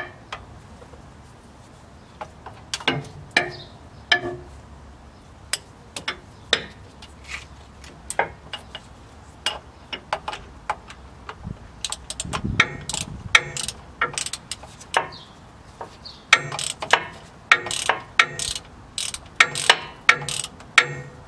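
Ratchet wrench clicking as a bolt holding the school bus's new starter is tightened. The clicks come sparsely at first, then faster and louder over the last nine seconds or so.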